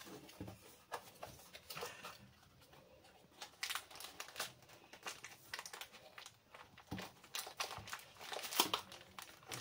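Camera-box packaging being handled and unpacked: irregular crinkling and rustling with soft clicks and taps as items are lifted out.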